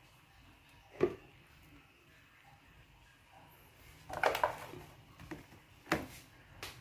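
Light knocks and a brief clatter from a plastic food container being handled: a knock about a second in, a short clatter around four seconds, and two more knocks near the end, over a faint low hum.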